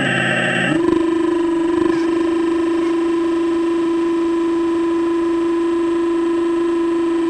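Steady electric whine from a radio-controlled hydraulic excavator's pump motor. In the first second it turns harsher and buzzier while the boom and bucket work, then settles back to one even tone.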